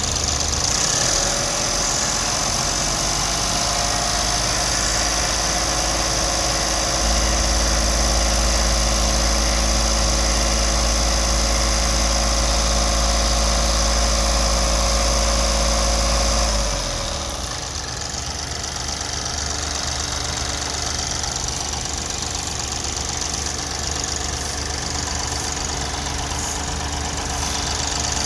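Mahindra TUV common-rail diesel engine idling with the bonnet open, with a steady ticking clatter that the owner takes for tappet noise. About a quarter of the way in its note gets heavier and a little louder, then drops back to a lighter idle a little past halfway.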